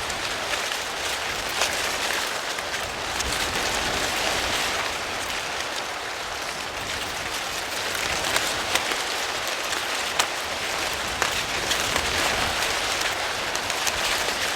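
Wind blowing through a cornfield: corn leaves rustling in a steady hiss that swells and eases, with many small sharp ticks as the leaves flap and knock together.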